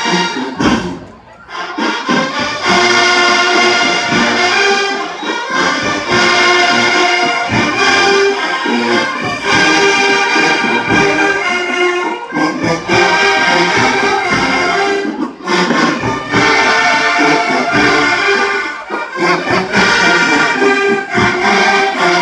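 Marching band brass section playing loud sustained chords, in phrases broken by short pauses.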